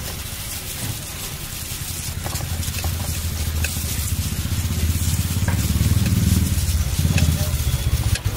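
A motor vehicle's engine runs close by with a low pulsing rumble that grows louder over the last few seconds, over a steady hiss of street noise.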